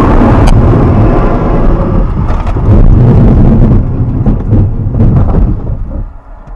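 Loud, heavy rumbling roar with a few sharp knocks, fading away about six seconds in.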